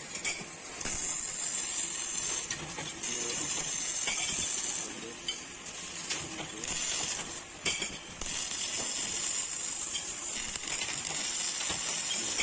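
MIG welding arc crackling and sizzling as sheet metal is welded with an INMIG250IH MIG/MAG welder, in several runs broken by short pauses.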